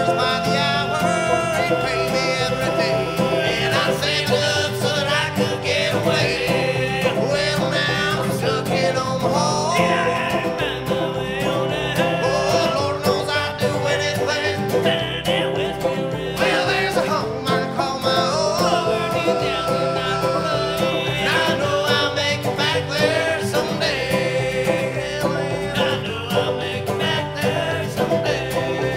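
Bluegrass band music: plucked acoustic strings playing at a steady beat.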